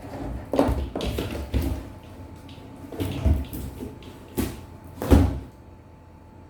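Irregular knocks and clatters of hard objects being handled, stopping about five and a half seconds in and leaving only a faint steady hiss.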